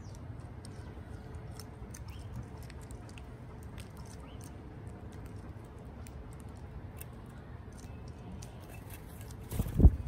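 Red-bellied woodpecker picking through seed in a ceramic feeder: scattered small sharp clicks and crunches of its bill among the seeds, over a low steady rumble. Near the end comes one loud burst as it takes off from the feeder.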